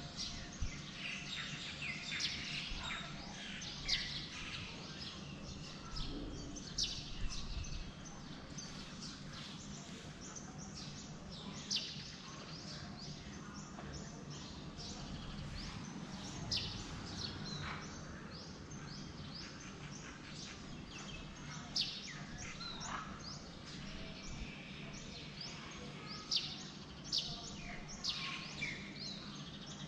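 Several birds chirping and calling, with many short, quick calls and falling notes throughout, over a steady low background hum.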